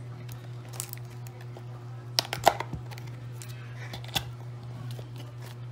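Small cardboard phone box being handled and opened: scattered clicks and scrapes of cardboard and a tamper-seal sticker being torn off, loudest about halfway through, over a steady low hum.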